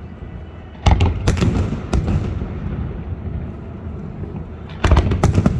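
Aerial fireworks shells bursting: a sudden boom about a second in, two sharper bangs soon after, then a quick cluster of booms near the end, with a low rumble between.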